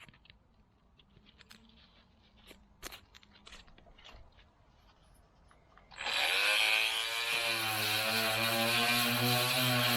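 A few light clicks and knocks of handling, then about six seconds in a Makita TM30D cordless oscillating multi-tool switches on with a loud, steady buzz, its pitch dropping a little before it settles.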